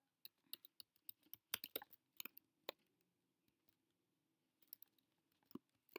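Faint computer keyboard keystrokes as a command is typed: a quick run of key clicks over the first two and a half seconds, a pause, then a few more keystrokes near the end.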